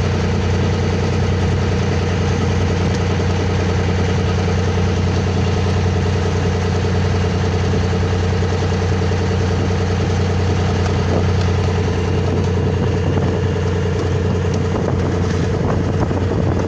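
Boat engine running at a steady speed, a constant low drone that does not change.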